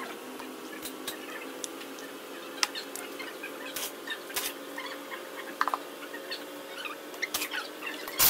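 A steady machine hum made of several tones, its top tone drifting slightly higher near the end. Light clicks and taps of a small hand tool on the electric valve actuator's housing sound on top of it.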